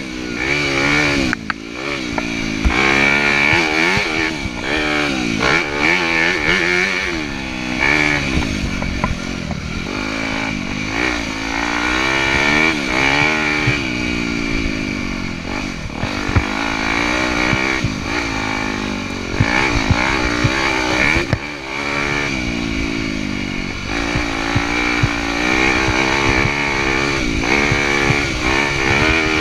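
Yamaha dirt bike engine revving up and falling back again and again as the rider accelerates and rolls off the throttle on a dirt trail, with scattered short clatters underneath.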